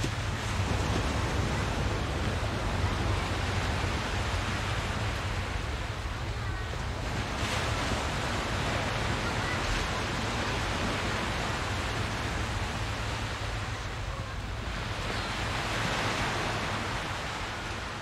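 Beach ambience: surf washing ashore steadily, swelling louder about halfway through and again near the end, with children's voices faint in the background.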